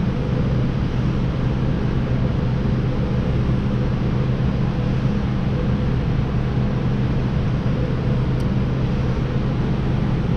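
Steady mechanical drone with a low hum, unchanging throughout, with a faint tick about eight seconds in.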